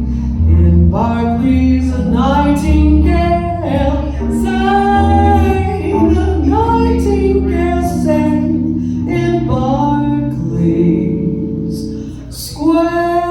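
Female voice singing slow, drawn-out notes over piano accompaniment in a jazz ballad.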